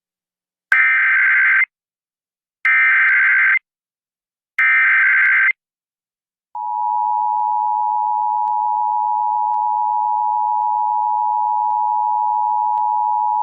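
Emergency Alert System header: three one-second bursts of warbling SAME data tones. About six and a half seconds in comes a long steady attention tone. Together they signal an incoming tornado warning.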